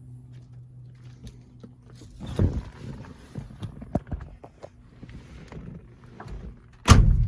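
Clicks, rustles and knocks of handling inside a 1971 Oldsmobile Cutlass S, with a thump about two seconds in and a loud, sharp thump near the end.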